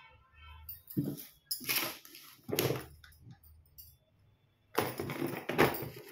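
Several short bursts of rustling and scraping handling noise, the longest cluster near the end.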